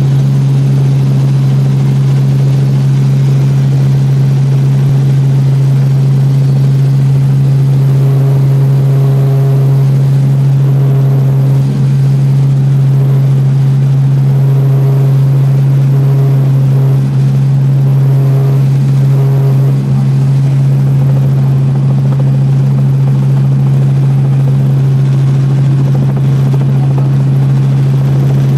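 Light helicopter in flight heard from inside the cabin: the engine and rotor drone as one loud, steady low hum that stays constant throughout.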